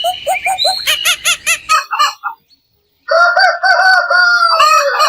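Chickens: a fast run of clucks for the first second and a half, then, after a short pause, a rooster crowing once, a long call that dips in pitch at its end.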